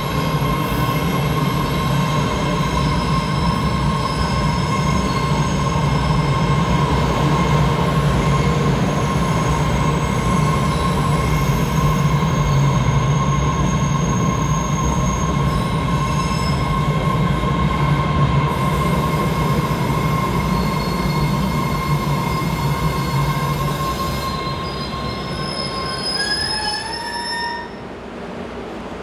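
MBTA Red Line subway train running slowly alongside an underground platform, with a steady rumble and a high steady squeal from the wheels. Near the end the rumble fades and a short rising whine sounds, then the noise drops off as the train comes to a stop.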